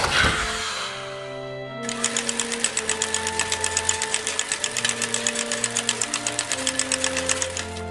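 Cartoon machine sound effects over light background music: a steam iron's hiss fading within the first second, then a fast, even mechanical clatter as the conveyor belt runs, stopping near the end.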